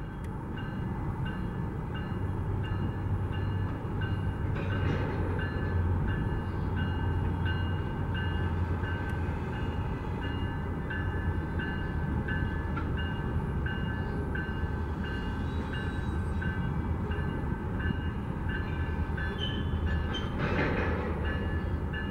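Train rumbling past with a steady low roar, under a high tone that repeats evenly about one and a half times a second.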